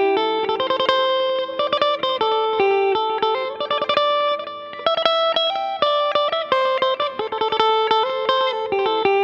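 Electric guitar played through a Zoom G1XN multi-effects pedal: a fast run of picked single notes and short phrases, demonstrating one of the pedal's preset tones.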